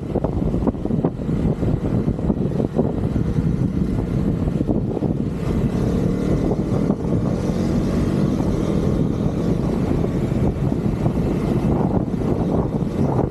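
Husqvarna Vitpilen motorcycle engine running under way, a dense, rapid rumble mixed with wind rush, its pitch rising a little around the middle as the bike accelerates.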